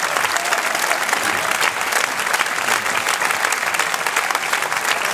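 A large audience in a theatre hall applauding: many hands clapping densely at an even level.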